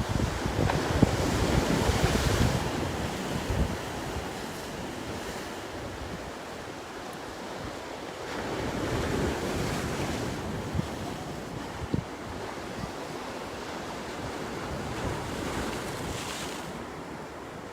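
Sea waves washing onto the shore, swelling and falling away twice, with wind gusting on the microphone.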